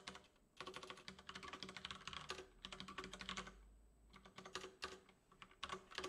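Fast typing on a computer keyboard: runs of quick key clicks, with a short pause a little under four seconds in.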